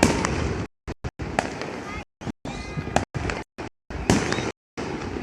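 Festival street noise with several sharp gunpowder bangs and voices, cut off again and again by sudden stretches of dead silence.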